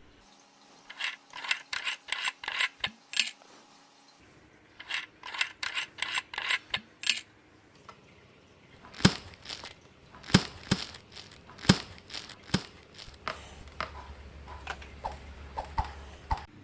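Small sharp clicks and taps in three bursts with short pauses between them: a female DC jack connector and small tools being handled as cable ends are fitted into its terminals.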